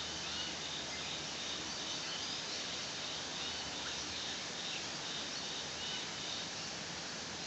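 Steady forest background hiss with faint, high chirping calls from wildlife repeating every second or so.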